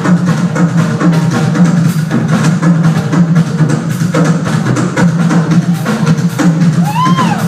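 Live drum solo on a full drum kit: a fast, unbroken run of drum hits with a heavy, boomy low end.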